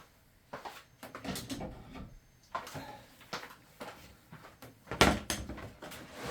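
Knocks and clatters of plywood panels and clamps being handled and set in place, with the loudest knock about five seconds in.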